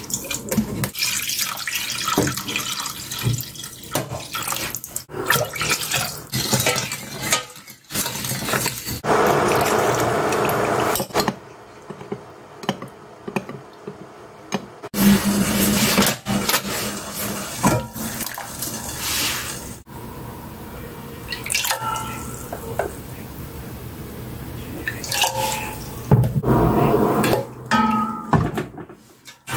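Kitchen sounds of liquids being poured and stirred: a dark sauce poured from a bottle into a stainless steel pot, a metal spoon stirring potato starch into water in a glass bowl, and near the end a wooden spoon stirring sauce in the pot. Many short clinks and knocks come between stretches of pouring and sloshing.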